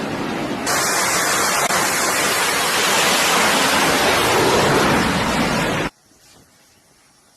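Loud, even rushing noise with no distinct tones, changing abruptly about a second in, then cutting off suddenly near the end to a faint background.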